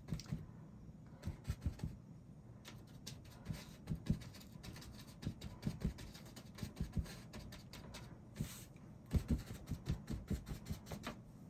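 A 2-inch paint brush dabbing and brushing on canvas, making many short, irregular soft taps and scratches.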